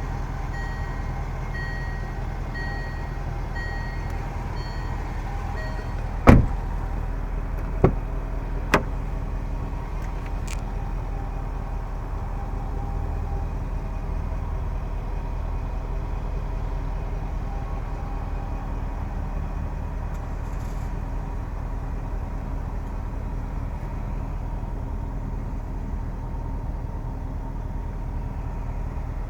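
Range Rover Sport's supercharged V8 idling steadily. For about the first six seconds a repeating electronic beep sounds, about two a second, then three sharp knocks follow, the first the loudest.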